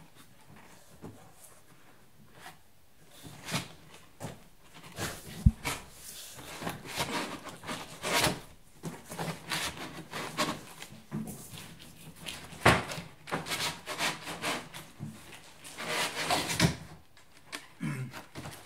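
Cardboard packaging being handled in a box: a cardboard packing insert and flaps scraping and rubbing against the carton, with scattered knocks and thumps, the sharpest about five seconds in.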